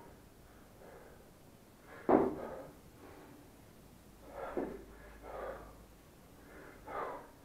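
A man breathing hard with effort: a sharp, forceful exhale about two seconds in, then three more short breaths spaced a second or so apart.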